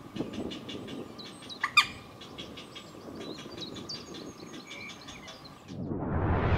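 Rapid ticking calls from grey heron chicks, about six a second, with one louder, sharper call just under two seconds in. Near the end the calls cut off and a whoosh swells up in their place.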